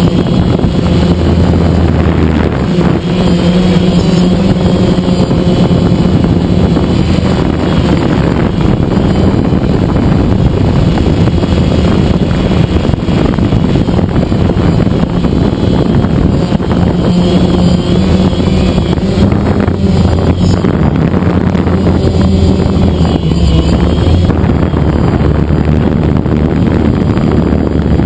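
DJI Phantom quadcopter's electric motors and propellers running steadily, heard loud and close from the camera mounted on the drone: a constant low hum with a higher whine that wavers slightly in pitch as the craft flies.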